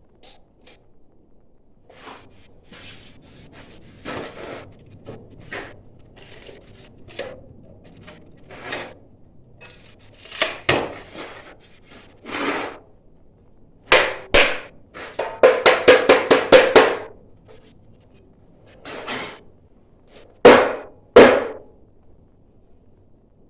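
Irregular knocks, taps and scrapes of fire brick and tools being handled and fitted, with a quick run of about eight taps about two-thirds through and two sharp knocks under a second apart near the end.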